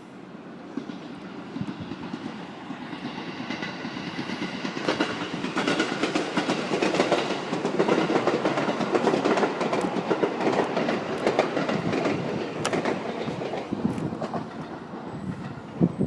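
A train passing, swelling to its loudest mid-way and then fading, with a rapid clatter of wheels on rail joints.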